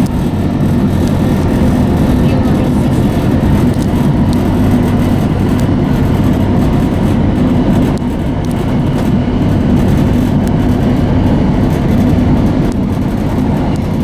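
Steady low rumble of a Gautrain electric commuter train running along the track, heard from inside the carriage.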